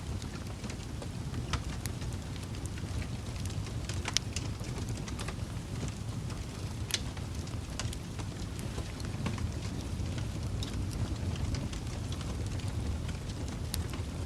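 Wood fire burning: a steady low rumble of flames with irregular sharp crackles and pops, a few of them louder.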